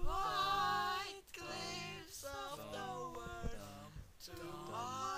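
Music: a song with a sung melody in long held, gliding notes over a low accompaniment.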